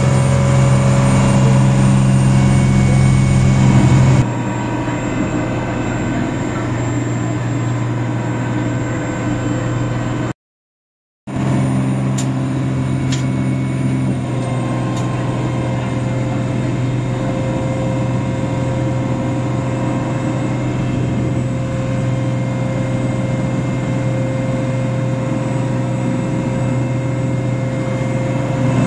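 Passenger motorboat's engine running steadily under way, a continuous low drone. The sound changes character about four seconds in and cuts out for about a second near the ten-second mark.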